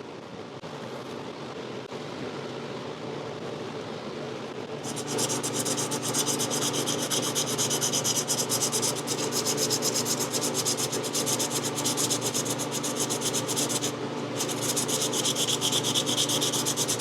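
Rapid back-and-forth hand scrubbing on the chair's wooden frame, starting about five seconds in, with a brief pause near the end. A steady low hum runs underneath.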